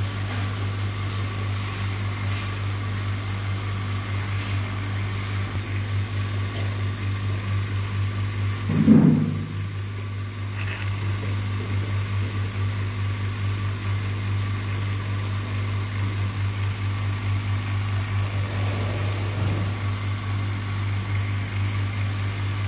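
Vacuum pump motor running with a steady low hum, pulling suction on a filter flask during vacuum filtration; a brief louder sound about nine seconds in.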